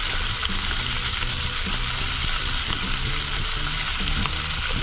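Bacon fat sizzling steadily in a frying pan as chopped cabbage, onion and carrot are tipped in from a bowl.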